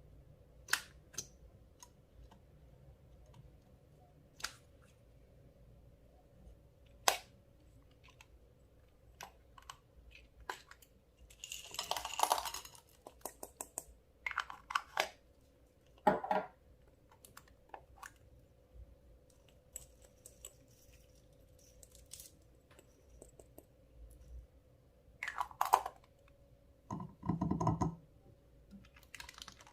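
Clear slime being handled with makeup: scattered sharp clicks and taps, with a few short crackling bursts, the longest about two seconds in the middle and another near the end.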